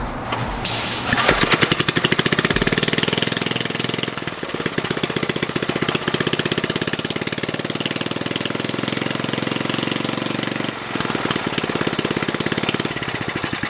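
Briggs & Stratton single-cylinder flathead small engine, freshly fitted with a Mikuni carburettor, starting about a second in and then running with a rapid, even firing beat. Its running note changes about four seconds in and again near the end.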